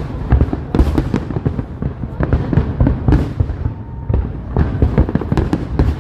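Fireworks display: a dense, continuous run of booms and crackling bursts, with louder sharp reports about a second in and again about three seconds in.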